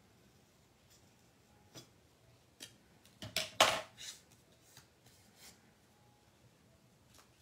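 Scissors snipping thin black cardstock to cut a dovetail into the end of a paper banner: a few light clicks, then a short run of crisp cuts and clatter about three and a half seconds in, the loudest moment, followed by light paper handling.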